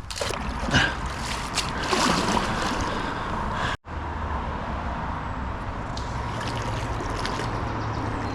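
Canal water sloshing and trickling as a magnet-fishing haul is worked out of the water, with a few sharp knocks in the first half. The sound cuts off abruptly partway through, then gives way to a steady hiss with a low hum.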